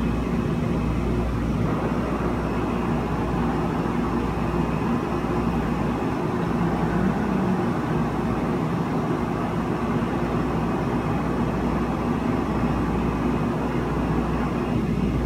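Steady whooshing hum of a running fan, holding an even level with a low drone underneath.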